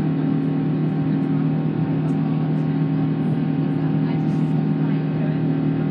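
The Rolls-Royce Trent 1000 turbofans of a Boeing 787-9 heard inside the cabin while the plane climbs after takeoff. It is a steady drone with a low hum of several steady tones.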